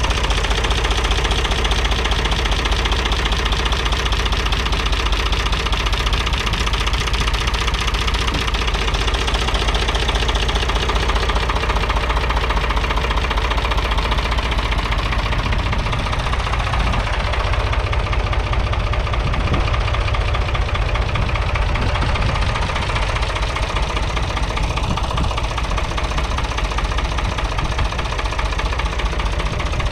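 The 2.7-litre three-cylinder diesel engine of a 1966 David Brown 880 Selectamatic tractor running steadily, heard close up beside the engine block.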